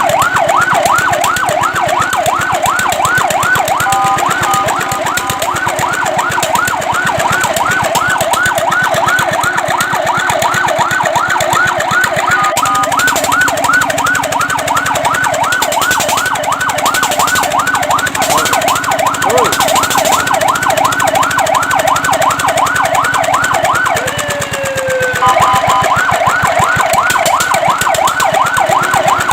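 Fire truck siren sounding a rapid yelp, about four rising-and-falling sweeps a second. The yelp is broken twice by a brief steady two-note tone, and once near the end by a single slow falling wail before it picks up again.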